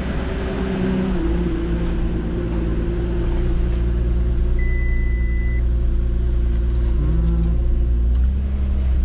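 Porsche Cayenne engine idling steadily. A single high electronic beep sounds for about a second midway through.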